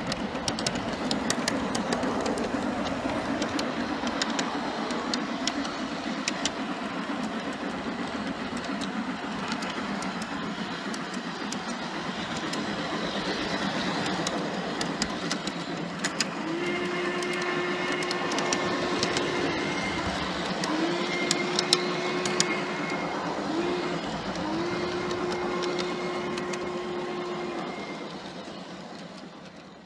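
Wheels of a G scale model train rolling along the track, heard from a car in the train: a steady rumble with scattered clicks at the rail joints. About halfway through, the locomotive's sound system blows a steam whistle in the grade-crossing pattern: two long blasts, one short, one long. The sound fades out near the end.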